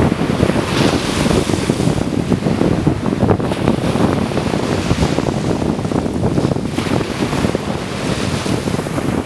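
Wind buffeting the microphone over the wash of sea waves, a steady, fairly loud noise.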